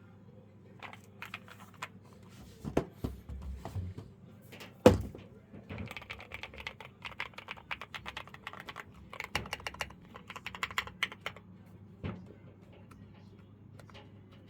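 Typing on a Lofree Foundation wireless mechanical keyboard: scattered key clicks at first, then two runs of fast typing. There is one loud thump just under five seconds in and another knock about twelve seconds in.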